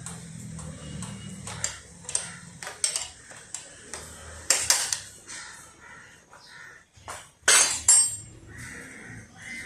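Metal tools clinking and clanking against motorcycle parts as bolts on a freshly oiled front fork are tightened: a run of irregular light clicks, with louder clanks about halfway through and again near the end.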